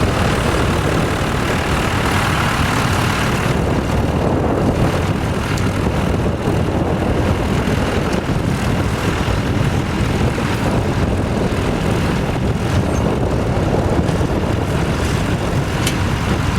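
Vintage tractor engine running steadily, with wind buffeting the microphone.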